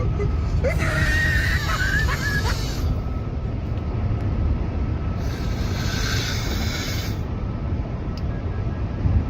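Loud snoring: long noisy breaths about every four seconds, with a wavering squeal in the first one, over a steady low rumble.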